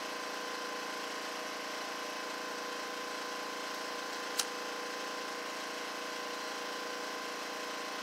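Small handheld butane torch burning with a steady hiss and hum while it heats a lawn mower's thermo wax choke assembly. A single sharp click about halfway through.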